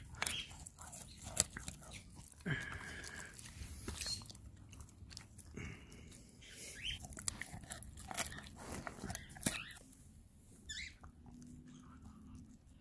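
Dogs biting and chewing a rolled tortilla snack held in a hand: a Siberian husky, then a long-haired chihuahua, with irregular wet crunches and sharp clicks of teeth.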